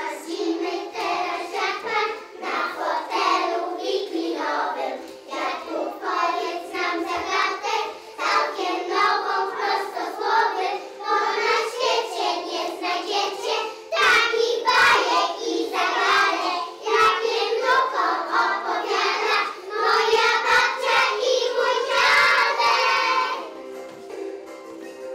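A group of young children singing a Polish song together over backing music; the singing stops near the end while the music goes on.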